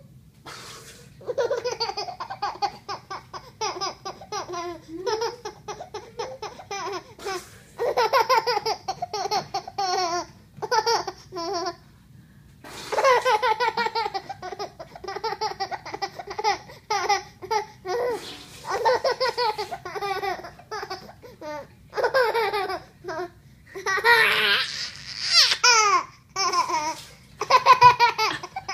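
Ten-month-old baby girl laughing in repeated bouts of quick, pulsing laughs, each bout a few seconds long with short pauses between.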